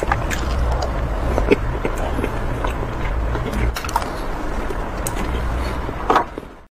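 Close-miked eating of chocolate: chewing and mouth sounds with scattered crisp clicks and crunches over a low rumble. The sound cuts out suddenly near the end.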